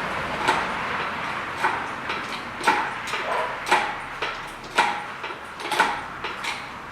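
Shop engine crane with an engine hanging from it being worked and moved: sharp metallic clanks about once a second, with lighter knocks between, fading away near the end.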